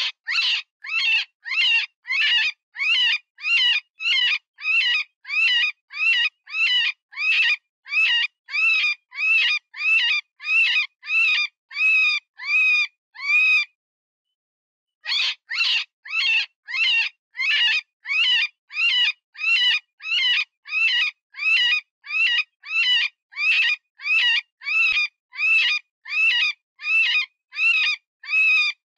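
Cottontail rabbit distress call: a fast, even series of high, wavering squeals, about three every two seconds, that breaks off for a second and a half near the middle and then resumes. These are the cries of a wounded rabbit, used to lure predators.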